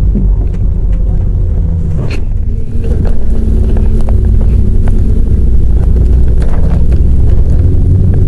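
Diesel engine of an Alexander Dennis Enviro 400 double-decker bus running under way, heard from on board as a low drone. It grows louder about three seconds in, with light rattles and knocks from the body throughout.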